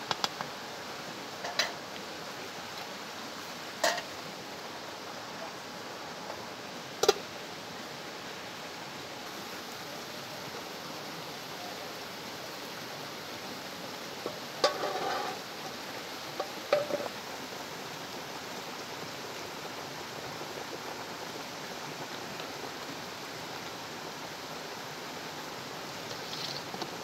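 Metal ladle and lid clinking against a large aluminium cooking pot: a few single sharp clinks in the first seven seconds and a short cluster of clatter about halfway through, over a steady hiss.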